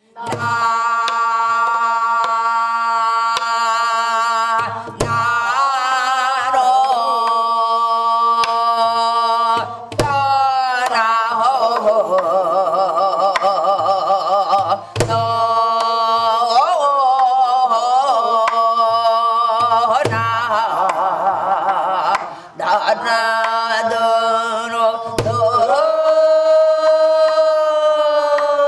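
Korean traditional wordless vocal (gueum) sung in long, held, wavering notes with vibrato, over a slow drum beat with a deep stroke about every five seconds.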